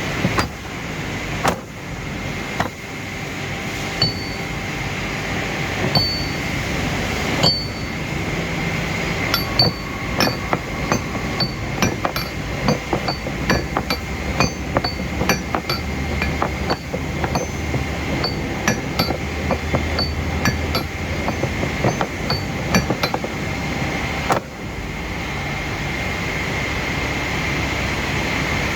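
A machine running steadily with a constant high whine, overlaid by many sharp metallic clicks and clinks, sparse at first and quickly repeating through the middle, which stop about 24 seconds in.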